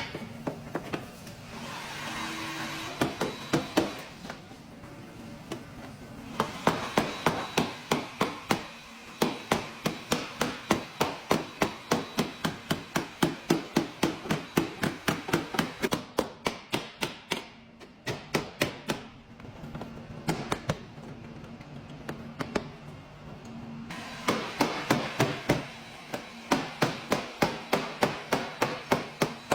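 Light hammer taps on a car's sheet-metal body panel, in runs of about three to four taps a second with short pauses between, as in tapping down a dent during paintless dent repair.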